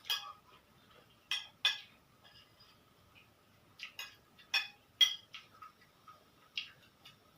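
Eating sounds: a scattering of short, sharp clicks and clinks, about eight over several seconds, of a utensil against the dish and mouth noises while eating instant noodles. The loudest click comes about five seconds in.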